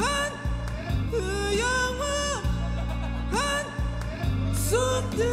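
A man singing a pop ballad over a karaoke backing track, sliding up into long held high notes with vibrato, phrase after phrase, over sustained low chords.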